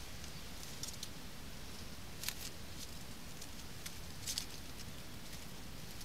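Dry reed stems crackling as a little bittern shifts on its nest and settles onto the eggs: a handful of short, sharp ticks and rustles over a steady low background hiss.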